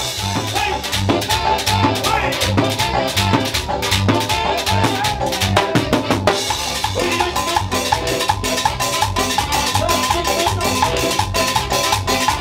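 Live cumbia band playing an instrumental passage: electric guitar and saxophones carry the melody over electric bass, drums and hand percussion, with a steady, even beat.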